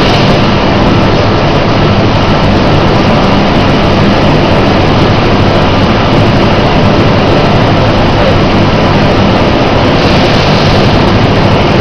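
Feed bagging machine and surrounding feed-plant machinery running: a loud, steady mechanical noise with a low hum underneath, a little brighter in the last couple of seconds.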